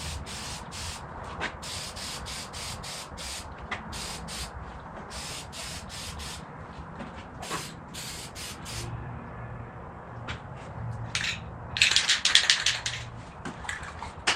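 Aerosol can of satin polyurethane spraying in many short hissing bursts, one after another, with a longer, louder spray near the end.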